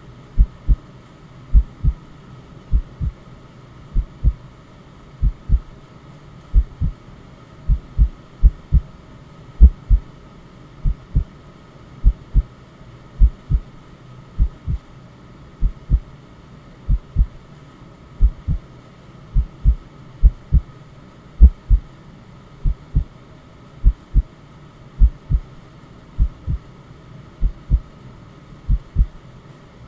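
Recorded heartbeat: paired low thumps, lub-dub, repeating evenly about fifty times a minute. Under it runs a faint steady hiss of white noise.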